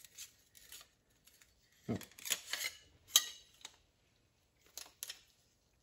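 Automatic transmission clutch discs and steel plates clinking and clattering against one another as a stack of them is handled and pulled apart, with a cluster of clinks about two to three seconds in and a few more near the end.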